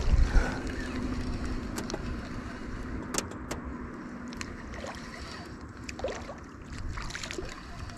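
Spinning reel retrieving line while a hooked fish is played from a jon boat: a steady low whir with scattered small clicks and knocks of the rod and reel.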